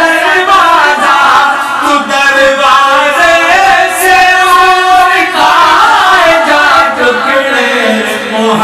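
Men singing an Urdu naat together, holding long ornamented notes that slide up and down in pitch.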